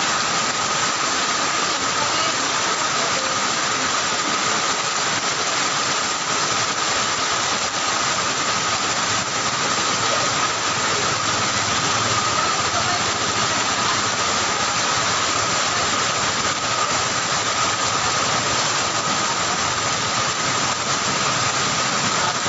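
Heavy rain pouring down in a steady, dense hiss, with a thin steady high tone running through it.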